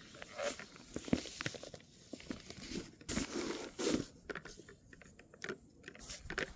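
Close rustling and crinkling handling noise, with irregular small knocks and clicks coming in uneven clusters.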